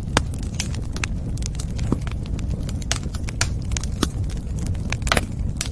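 Fire in a fireplace crackling, with sharp irregular pops, several a second, over a steady low rumble.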